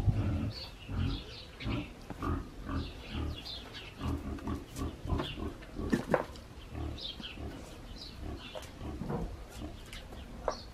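Low animal grunts repeating about twice a second, with high bird chirps over them.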